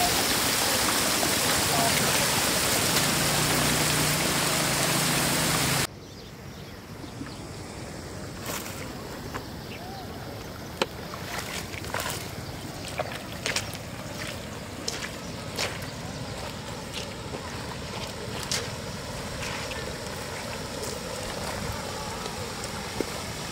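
Floodwater rushing steadily over a road edge, cutting off suddenly about six seconds in. Then a much quieter stretch with scattered light clicks and knocks as a man in rubber boots walks carrying a wicker basket and a plastic crate.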